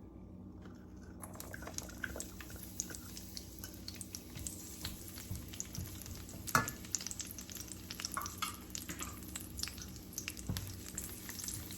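Chopped garlic sizzling in hot olive oil in a frying pan, the hiss starting about a second in, while a utensil stirs it with many small clicks and scrapes against the pan and one sharper clack past the middle.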